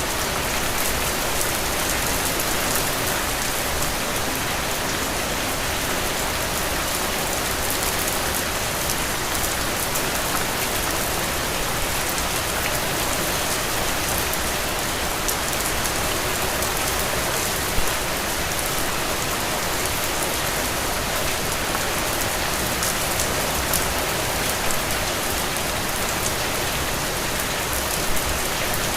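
Heavy rain falling steadily, a dense even hiss with many sharp drop impacts on surfaces. A few louder drips or knocks stand out, one midway and one near the end.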